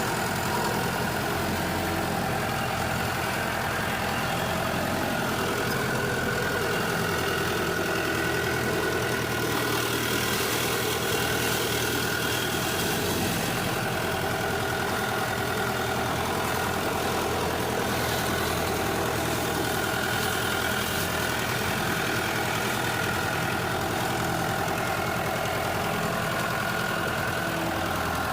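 Tractor engine running steadily while the tractor ploughs a field on cage wheels.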